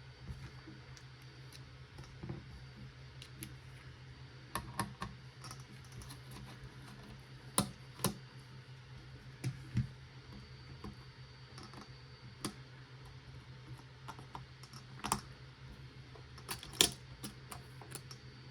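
Irregular small clicks and taps of a screwdriver and small metal parts being worked on a mini PC's motherboard as a small heatsink is unscrewed and lifted off. There are a few sharper clicks in the middle and near the end.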